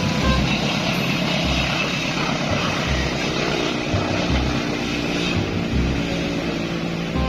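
A vehicle engine running steadily with a dense, buzzing drone, over music with a slow, regular low beat. A set of steady tones joins in about three seconds in.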